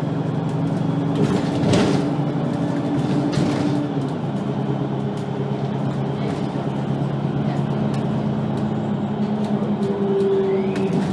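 VDL Citea LLE-120 city bus engine running under way. Its pitch steps down about four seconds in as the revs fall, with a couple of knocks and rattles along the way.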